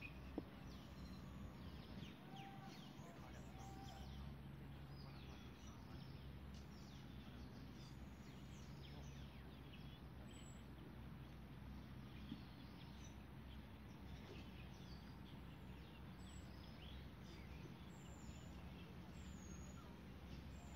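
Faint outdoor ambience of small birds chirping here and there over a low steady rumble, with one sharp click about half a second in.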